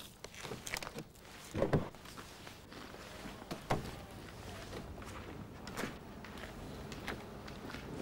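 A few faint, scattered crunches and clicks over low hiss, the loudest about two seconds in.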